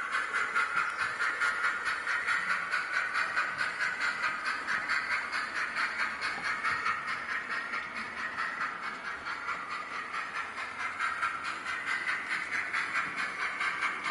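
Synthesized steam-locomotive chuffing from the Soundtraxx ECO-21PNEM UK steam sound decoder, played through the onboard speaker of a Hornby P2 2-8-2 model locomotive. It is a steady, even beat of exhaust chuffs with a hissy, tinny edge. It fades a little in the middle and then comes back up.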